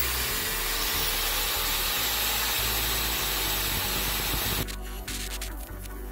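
Angle grinder with a cutoff wheel running at speed, a steady loud hiss, used to cut a marking groove in a drill-spun stainless steel rod. About four and a half seconds in it turns quieter and scratchier.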